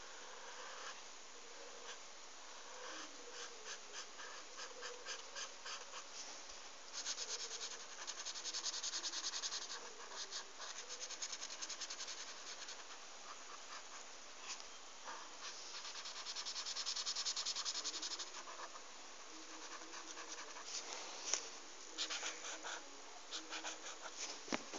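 Marker pen scratching on lined notebook paper in quick back-and-forth strokes while colouring in, with two longer stretches of steady scribbling, about seven and sixteen seconds in.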